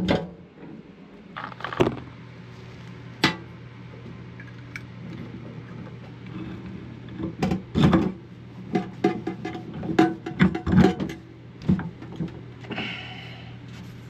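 Background music with a steady low tone, under scattered knocks and metallic clinks from a chrome faucet being handled and fitted onto a stainless steel sink.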